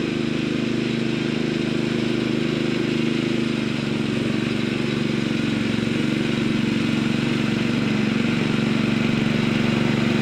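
Petrol engine of a 7¼-inch gauge miniature railway locomotive with hydrostatic drive, running steadily on the throttle in full drive, its note getting slightly louder later on.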